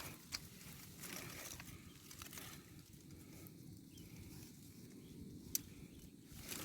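Faint outdoor background with some rustling and two short, sharp clicks, one just after the start and one near the end.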